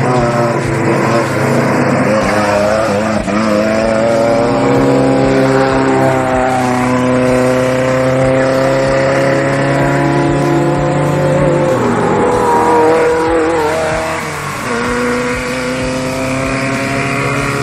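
Off-road race vehicle engines running and revving, several engine notes rising and falling in pitch. A steady low engine note drops out about twelve seconds in.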